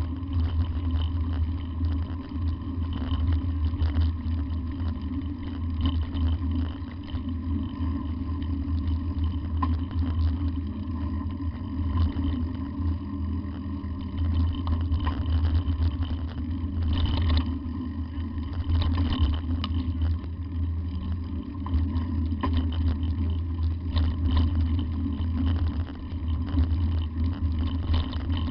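A motor vehicle running with a steady low rumble, with frequent small rattles and knocks over it.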